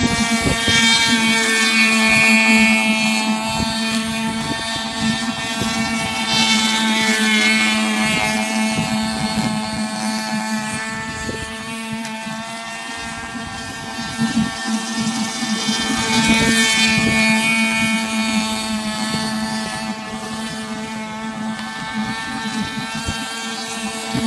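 Model catamaran's aircraft-type motor and propeller running at speed: a steady high buzz with many overtones that swells louder and fades again about three times as the boat passes nearer and farther.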